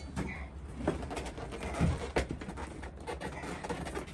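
Rustling, light clicks and a few soft knocks as a new motorcycle seat is pushed and worked into place on the bike's frame, one firmer knock a little under two seconds in, over a low steady hum.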